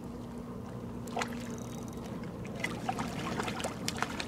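A hooked bass splashing at the water's surface as it is reeled in toward a kayak, with several short splashes in the second half. A low steady hum runs underneath.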